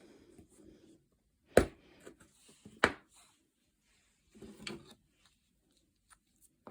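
Small model-kit parts being handled at a hard work surface: two sharp taps about a second apart, then a brief rustle of handling and a small click near the end.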